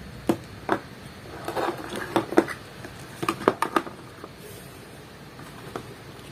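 Hard plastic toy-castle parts clicking and clattering as they are handled and pressed into place, a scattering of sharp knocks during the first four seconds.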